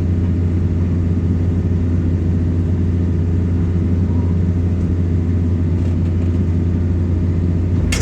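Excavator's diesel engine running steadily, a deep even hum with no change in speed.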